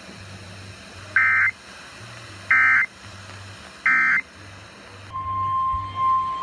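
NOAA Weather Radio's SAME digital code: three short warbling data bursts, about a second and a half apart, marking the end of the tornado warning message. About five seconds in, the steady single-pitch weather-radio alert tone starts and holds.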